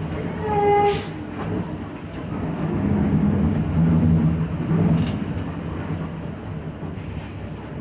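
Inside a Mercedes-Benz OF-1721 city bus under way: the drivetrain is running with a cabin rumble and rattle, and a growling hum from the differential swells about three seconds in and eases off around five seconds. A short high beep sounds about half a second in.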